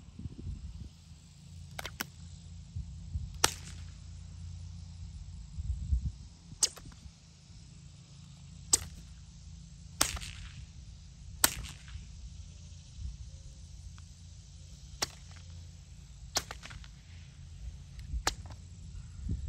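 A whip cracking about nine times at uneven intervals, one sharp crack every one to four seconds.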